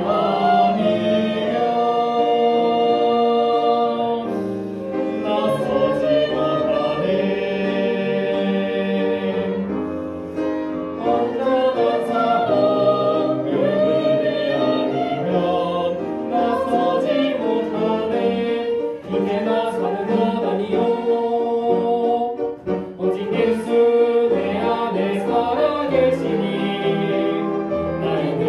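A choir singing a hymn with an orchestra accompanying it.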